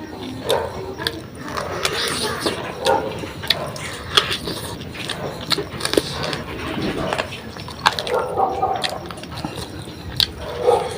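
A person eating close to the microphone: chewing with frequent sharp mouth clicks and smacks at an uneven pace.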